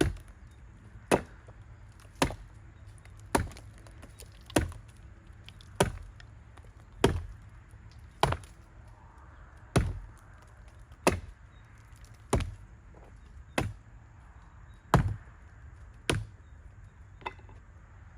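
Heavy blows struck on wood at a steady pace, about fifteen strikes roughly 1.2 seconds apart, the last one faint.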